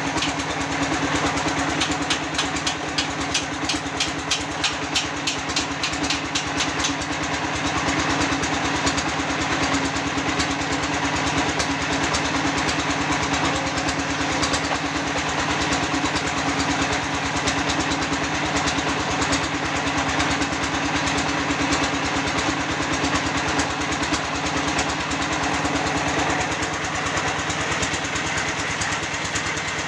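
Small engine of a concrete-block press machine running steadily. For the first several seconds a fast, even clatter rides over it.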